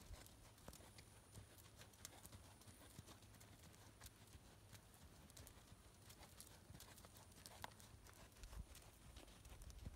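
Faint hoofbeats of a horse walking on a sand arena, heard as soft, irregular clicks.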